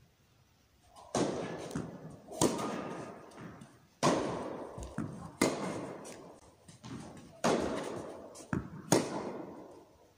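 Tennis rally in an indoor hall: six ball strikes off the racket strings, about one and a half seconds apart, each followed by the hall's echo. Fainter knocks fall between them.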